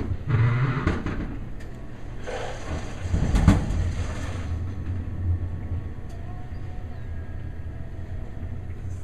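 Tap water running from a sink faucet and splashing onto a newborn's head as it is rinsed. There are louder bursts of splashing just after the start and again around three to four seconds in.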